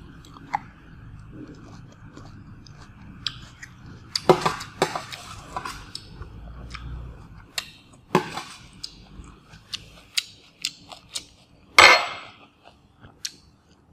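Metal spoon and fork clinking and scraping on a stainless steel tray, with chewing between, in a run of short sharp strokes; the loudest scrapes come about four, eight and twelve seconds in.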